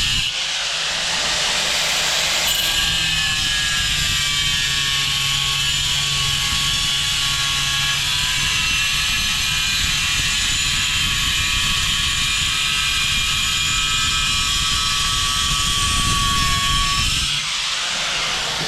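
Power tool with a spinning blade cutting tile: a steady high whine over a gritty grinding noise, easing off near the end.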